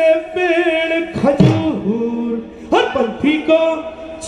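Men singing a folk song in long, held, wavering notes, phrase after phrase, with brief breaks between them.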